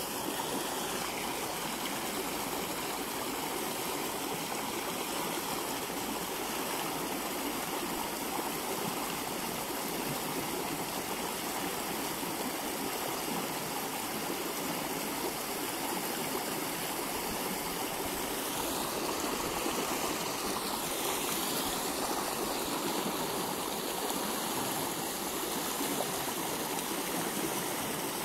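Steady rushing of a fast-flowing stream running high after rain.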